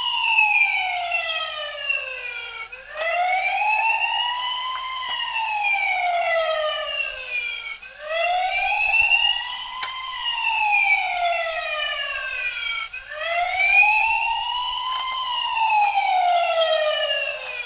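Battery-powered toy fire truck's electronic siren wailing: a slow rise and fall in pitch, each cycle about five seconds long, repeating three and a half times.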